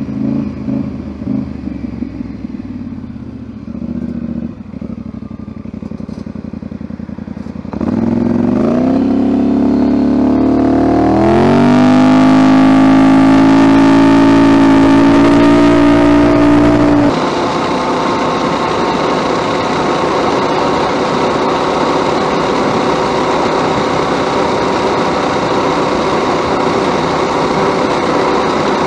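Stock 224 cc single-cylinder go-kart engine at wide-open throttle: its pitch climbs over about four seconds and holds high. About 17 s in the sound changes abruptly to a steady, rougher engine noise.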